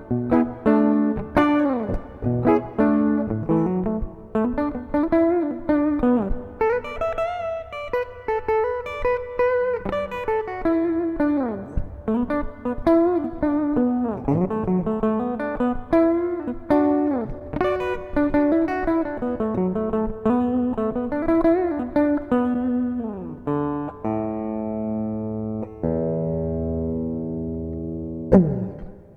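Clean electric guitar played through a DigiTech Polara reverb pedal: picked melodic phrases with bent and sliding notes. Near the end a chord is held and left ringing out, and a new phrase begins just before it finishes.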